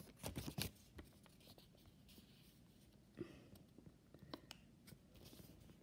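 Near silence: a few faint taps in the first second, and a brief soft rub about three seconds in.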